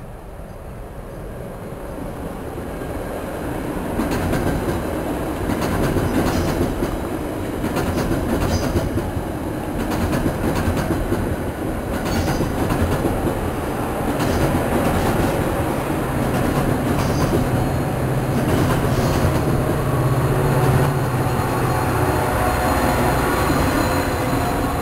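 Metra diesel-hauled commuter train passing close by, growing louder over the first few seconds as it approaches. The bilevel gallery cars rumble past with wheels clicking over the rail joints. In the second half the diesel locomotive pushing at the rear adds a steady engine drone.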